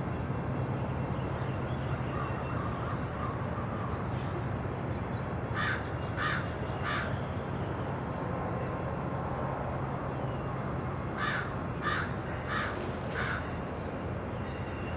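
A crow cawing three times, then four more times a few seconds later. Underneath runs the steady rumble of a freight train of shipping containers rolling past.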